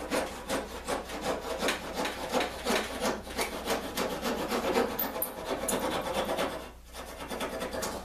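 A hand file rasping back and forth on a wooden part in quick strokes, about three a second, with a short pause near the end.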